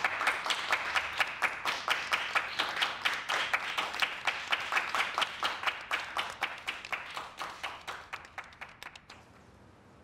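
A small group of people clapping, with many quick overlapping claps that thin out and stop about nine seconds in.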